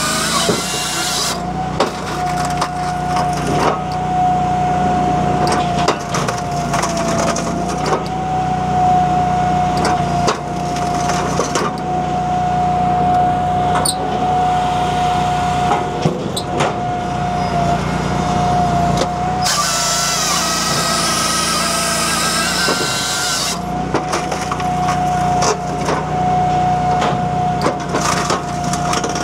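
Japa 365 firewood processor, driven by a Honda iGX700 V-twin engine, running under load with a steady hum and whine. Wood cracks and splinters repeatedly as logs are split. The saw cuts through a log for a few seconds about two-thirds of the way in.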